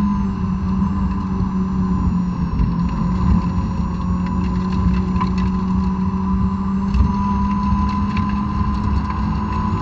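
Honda S2000's 2.2-litre four-cylinder engine, on its stock exhaust, heard from inside the cabin running high in the rev range. Its pitch sags as the car slows into a corner, then climbs again as it accelerates out, over steady road and wind noise.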